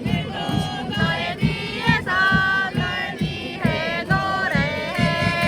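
Singing over a steady drum beat, a melody sliding between held notes.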